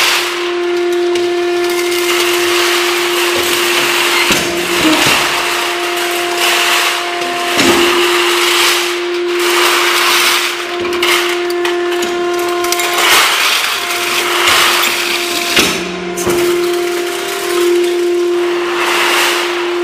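Crusher machine running: a steady motor whine under rough grinding and crunching that swells and eases irregularly as material goes through.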